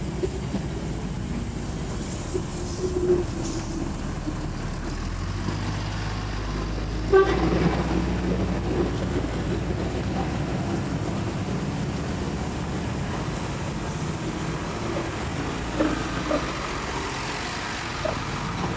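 Diesel engines of large coach buses running as they crawl past at close range, a steady low drone. Short horn toots sound over it, the loudest about seven seconds in and others around three and sixteen seconds in.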